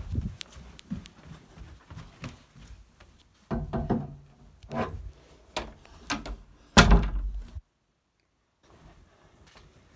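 A hammer striking something hard: about half a dozen heavy thuds over three seconds, the loudest near the end of the run, then the sound cuts out suddenly.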